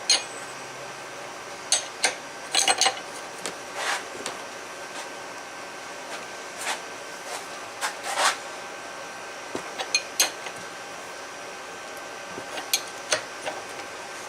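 Scattered metal clinks, clicks and scrapes of hand tools as a gear puller is set on and worked against a Suzuki Samurai steering box's pitman arm, with a faint steady hum under them.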